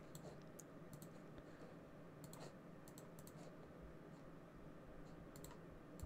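Near silence, with a few faint, scattered clicks of a computer mouse and keyboard as the pitch-shift settings are changed.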